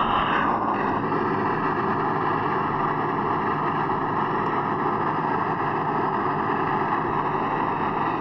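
Custom Godzilla monster sound effect: a loud, steady, rushing rumble with faint held tones, sustained without a break.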